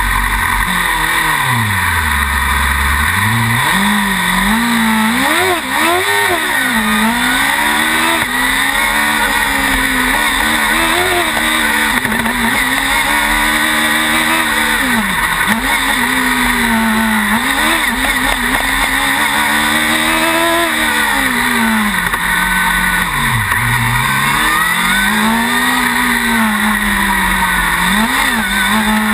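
Formula SAE race car's engine heard from onboard, revving up and falling back over and over as the car accelerates and slows between corners of an autocross course. The pitch swings up and down every second or two, with its deepest drop about two seconds in.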